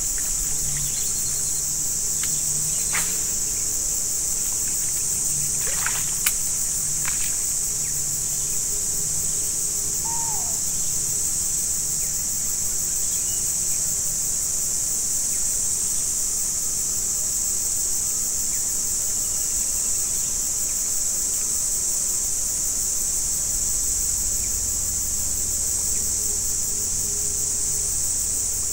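Steady high-pitched chorus of insects (crickets or cicadas) in swamp forest, with a few sharp clicks in the first seven seconds and a short falling call about ten seconds in.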